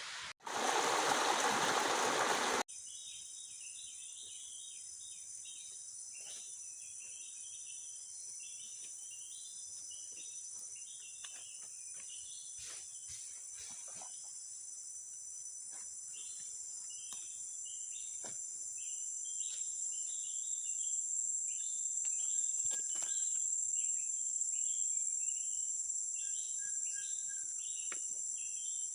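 A burst of loud, even hiss for the first couple of seconds cuts off abruptly. It gives way to a steady, high-pitched insect drone, typical of crickets or cicadas, with rapid chirping calls over it, swelling somewhat in the second half.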